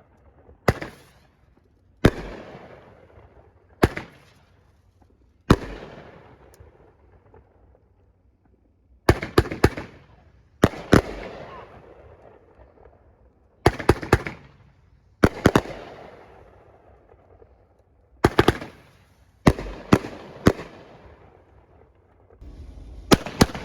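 Consumer fireworks going off: a run of sharp bangs, single ones every second or two at first, then quick clusters of two to four, each bang trailing off in a fading tail.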